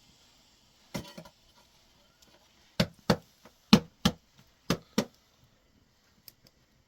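Sharp knocks: a single one about a second in, then six more in three quick pairs, the loudest in the middle pair.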